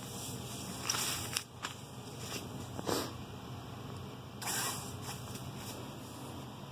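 Soft rustling and scuffling of a kitten and a hand on fabric as they wrestle and the kitten moves about, in short bursts about one, three and four and a half seconds in, over a faint steady low hum.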